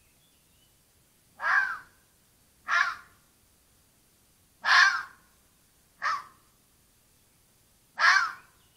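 Red fox calling: five short, harsh calls spaced one to two seconds apart.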